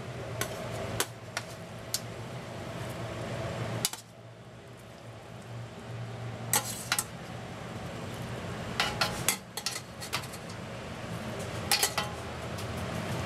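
Stainless steel tongs clinking against a stainless tray and pot as food is picked up and dropped in, in short clusters of sharp clinks. A steady low hum runs underneath.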